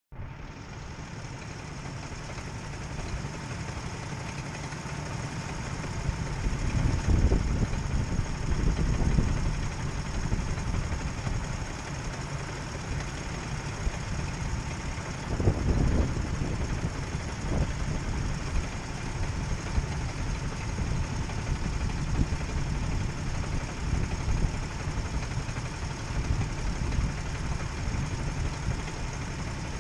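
Several Sodi RT8 rental karts' single-cylinder four-stroke engines idling together on the grid in a steady low rumble, with louder swells about seven and again about fifteen seconds in.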